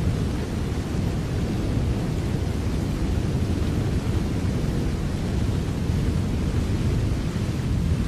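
Steady heavy rain: an even hiss of falling drops over a deep, continuous low rumble, without a break or a distinct crack.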